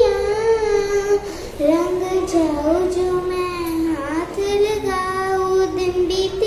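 A young girl singing solo, holding long notes that glide up and down in pitch, with a quick dip in pitch about four seconds in.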